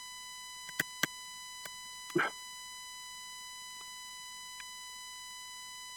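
A few light clicks and one short scrape from a small blade working on the metal contacts of a car's hazard switch, over a steady high-pitched electronic tone.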